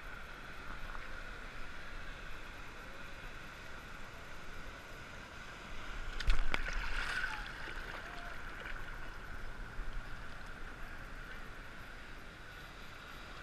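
Sea water sloshing and lapping against a GoPro camera held at the surface, with one louder splash about six seconds in.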